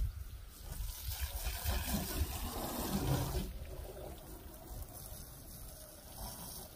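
Garden hose spraying water onto a pickup truck's body, splashing and running off, louder in the first half and dropping off about three and a half seconds in.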